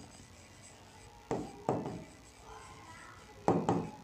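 Writing on a board: four short, sharp taps in two pairs, the first pair about a second in and the second near the end.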